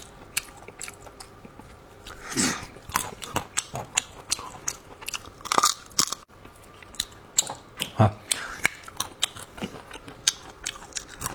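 Close-up biting and chewing of fresh almonds, with many sharp crunching cracks as the nuts are bitten through. The almonds are now riper and less tender.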